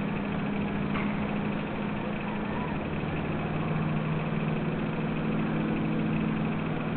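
A steady mechanical hum with a low drone held on a couple of steady tones, and a short click about a second in.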